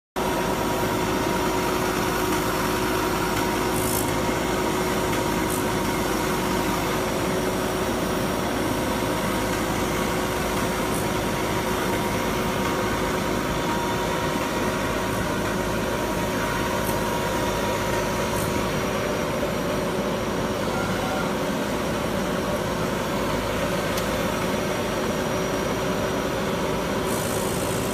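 CGR-155 compact micropiling and rotary drill rig running steadily: a constant mechanical hum with a faint steady whine, and a few light clicks now and then.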